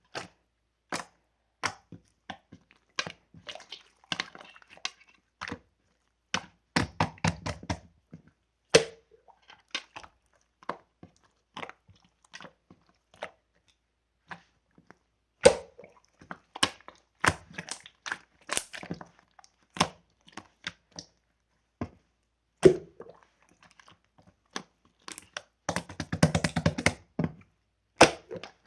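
Close, irregular crunching and crackling: a run of sharp clicks and cracks at uneven intervals, with a few louder snaps and a denser cluster near the end.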